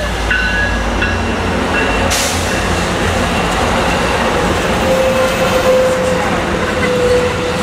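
Double-deck passenger cars of an Amtrak Pacific Surfliner train rolling past on the tracks: a steady rumble of wheels on rail, with a brief sharp clack about two seconds in and a faint steady whine in the second half.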